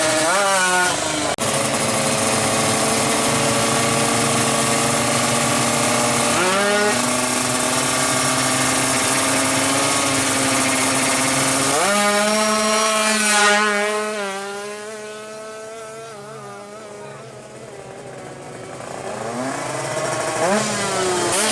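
A 155 cc two-stroke drag-bike engine held at high revs with a steady buzz, stepping up in pitch twice. It then drops and quiets for a few seconds before revving up again near the end.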